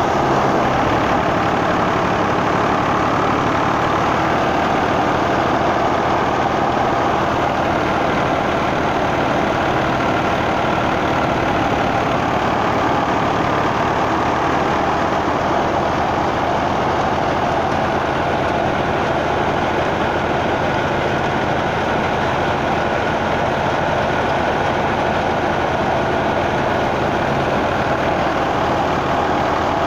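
New Holland Ghazi 65 hp tractor's diesel engine running steadily under load while it drives a wheat thresher, the thresher running along with it in one continuous, loud mechanical din.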